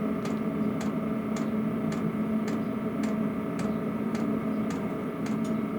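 5 kW diesel air heater running at minimum power: its fuel dosing pump ticks about twice a second over the steady hum of the fan and burner.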